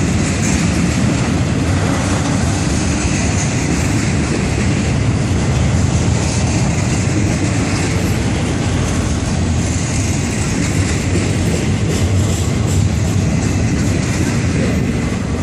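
Florida East Coast Railway intermodal freight train rolling past at close range: steady, deep rumble of double-stack container cars and trailer flatcars on the rails.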